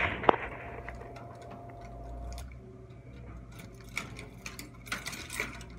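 Keys jingling and a key clicking in the lock of a brass post office box, a scatter of small metallic clicks in the last couple of seconds. A sharp knock just after the start, and a steady electrical hum underneath.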